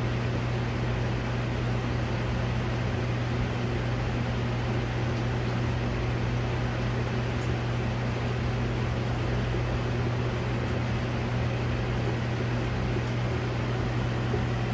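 Steady low mains hum from reef aquarium pumps, under an even hiss of circulating water.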